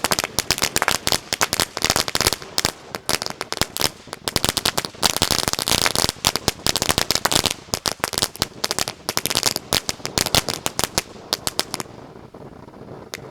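A Winda 'Neon Jelly Bean' firework fountain burning with a dense, rapid crackle of sharp pops. The crackling thins out to scattered pops about twelve seconds in.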